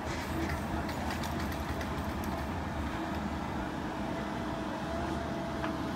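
Compact excavator's engine running steadily, a constant machine hum. A few light clicks and knocks come in the first couple of seconds.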